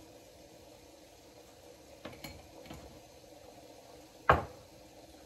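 Kitchen utensils and containers clinking on a countertop: a few light clicks about two seconds in, then one sharp, louder clink a little after four seconds.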